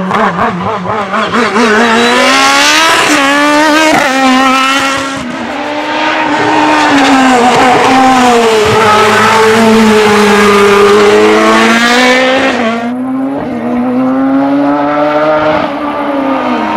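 Open-wheel single-seater race car engines revving hard through the gears over several passes, the pitch climbing and falling back at each gear change.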